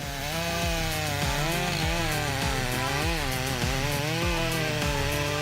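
Stihl MS 661 two-stroke chainsaw running at high revs while cutting through a large trunk, its engine pitch wavering up and down as the chain bites into the wood.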